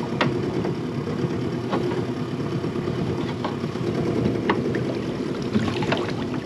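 Small boat's outboard motor idling steadily, with a few faint clicks and knocks over it.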